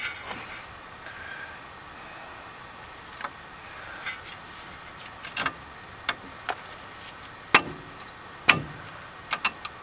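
Metal-on-metal clicks and knocks from a disc brake caliper being worked onto its bracket over new pads while its guide pin is lined up. Scattered light taps, with two louder knocks a little under a second apart near the end.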